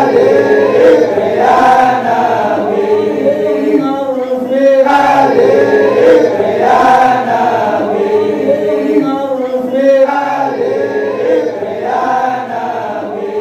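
A group of men chanting an Islamic devotional song together in unison, the kind of chant sung at a Maulid. The voices rise and fall in long phrases that repeat every few seconds.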